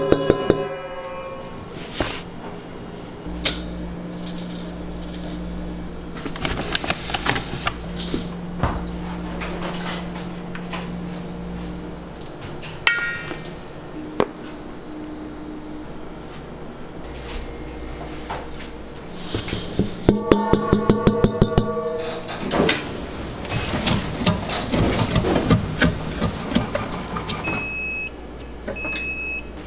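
Bakery prep sounds: flour poured and scooped into a stainless-steel spiral mixer bowl, with knocks and clatter of tools against metal and plastic, over a steady low machine hum. Two short electronic beeps come near the end.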